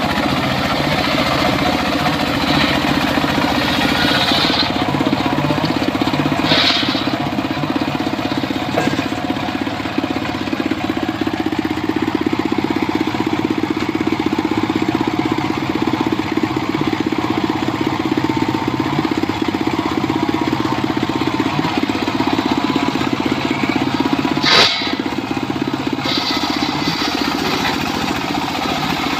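Circular saw running steadily while cutting wood, with a few short sharp noises, the loudest near the end.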